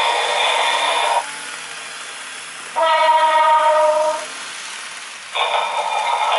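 Model railway train running past: a steady running noise cuts off about a second in, a horn sounds for about a second and a half in the middle, and the running noise comes back near the end.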